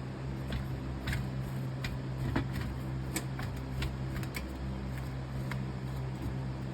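A steady low mechanical hum with scattered light clicks and taps over it.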